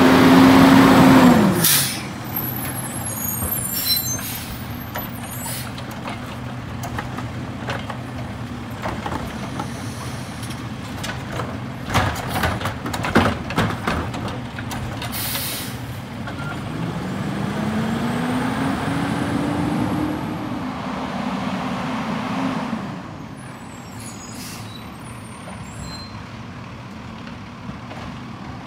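Autocar garbage truck with a Heil Multitask body: the engine runs high, then drops back with a sharp air-brake hiss about a second and a half in. Midway come a few clanks and another air hiss, then the engine speeds up, rising in pitch, as the truck pulls away, and it fades off.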